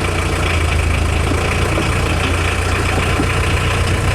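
Volkswagen T3 bus engine idling steadily.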